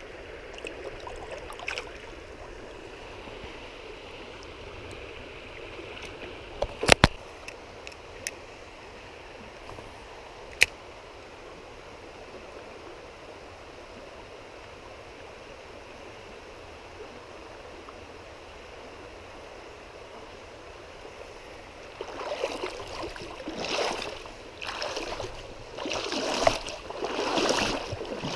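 Shallow stream water running steadily, with a few sharp clicks about seven seconds in and another a few seconds later. In the last six seconds come irregular louder splashes of someone wading through the shallow streambed.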